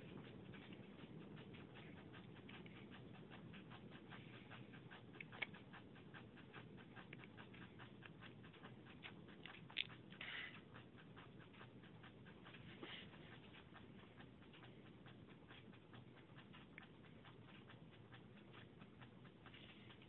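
Hunter Southern Classic ceiling fan running: a faint steady motor hum with a rapid, light ticking, and a few louder clicks now and then.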